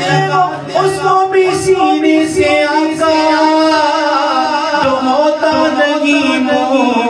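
A man singing an Urdu devotional naat into a microphone, in long held notes that bend and glide, with an echo effect on the voice.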